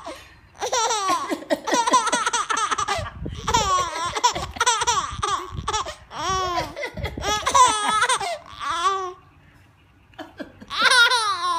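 A baby laughing hard in long, high-pitched runs of belly laughter, each run made of quick repeated bursts. The laughter breaks off briefly near the end, then starts again.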